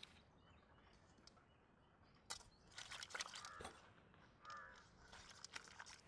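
Quiet wet handling of raw skinned quail in an aluminium bowl: scattered clicks, squelches and rustles in short clusters. Two brief bird calls sound in the background, a little past the middle.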